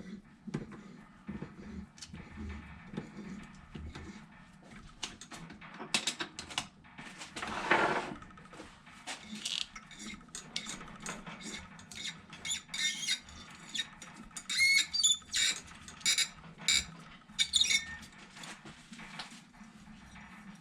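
Small hand work on a metal part: irregular clicks and knocks, a brief hiss about eight seconds in, then a cluster of short squeaks.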